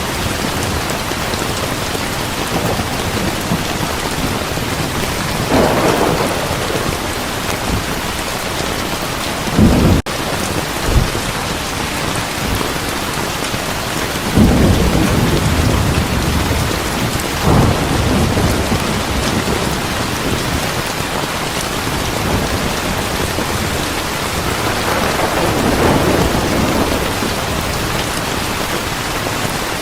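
Steady heavy rain with several low rolls of thunder swelling up and fading: a thunderstorm soundscape for sleep and relaxation.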